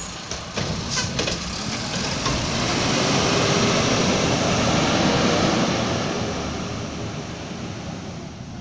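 Mack LR garbage truck's diesel engine revving as the truck pulls away and passes, swelling to its loudest in the middle and then fading. A few sharp knocks in the first second or so come from the recycling cart being shaken out by the Curotto Can arm.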